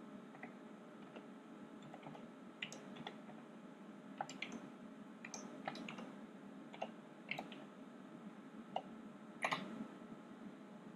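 Keystrokes on a computer keyboard typing out a command-line path: faint, irregular single key clicks, with a louder keystroke about nine and a half seconds in as Enter is struck.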